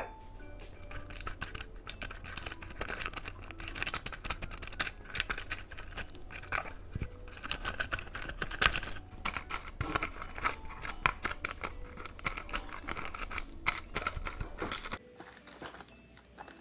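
Kitchen handling sounds: a dense run of small clicks, scrapes and rustles from hands working with baking tools, stopping abruptly near the end.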